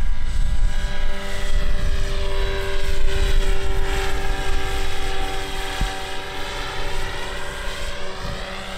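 Electric RC model airplane flying past, its motor and propeller giving a steady whine of several tones. A low rumble runs under the first half.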